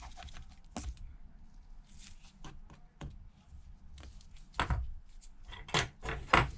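Small metal tools and tiny screws clicking and tapping: a precision screwdriver and tweezers working the screws out of the phone's battery-connector plate and setting them down. Many light ticks, with three sharper clicks toward the end.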